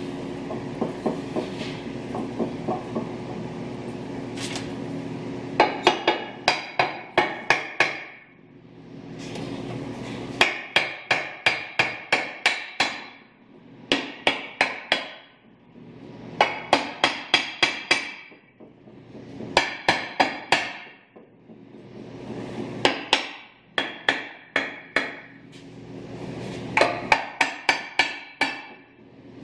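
Mallet tapping on a Toyota 200 Series Land Cruiser front differential case. It comes in quick runs of several light strikes, about four a second, repeating every few seconds from a few seconds in. The taps are working the upper case half down evenly onto the lower half so the gap between the halves can be measured.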